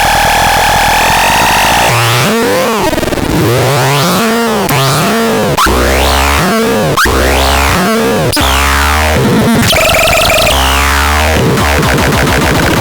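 Synthesizer playing harsh, noisy electronic sounds: a held tone for about two seconds, then pitches sweeping up and down again and again over a low bass that cuts in and out.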